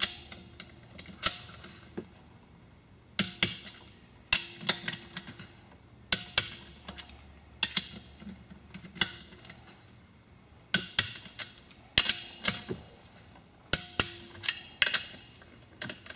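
Click-type torque wrench on the Aerovee engine case's main stud nuts, giving a sharp metallic click every second or two as each nut reaches the set 25 foot-pounds, some clicks followed by a few lighter ratchet clicks.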